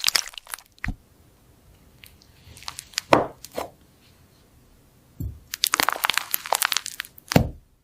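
Crisp crunching and crackling in bursts: a dense run of small crackles at the start, sharp single cracks around three seconds in, and another dense run of crackles from about five and a half seconds that ends on a sharp crack.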